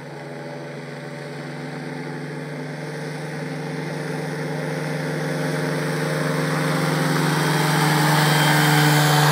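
Powered parachute's engine and propeller running at a steady pitch as the craft flies in low toward the listener, growing steadily louder throughout.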